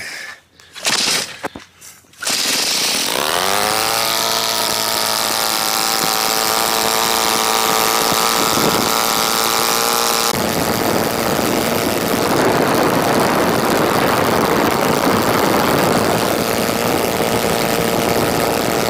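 DLE-222 four-cylinder two-stroke gas engine with its propeller, starting about two seconds in after a few short irregular noises. It picks up in pitch briefly, then settles into a steady idle of around 3600 rpm. About halfway through, the sound turns rougher and noisier.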